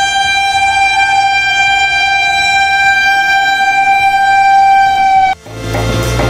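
Horn of an Indian Railways locomotive hauling a passing passenger train: one long, steady single-note blast. It cuts off suddenly a little over five seconds in and gives way to a deep low rumble.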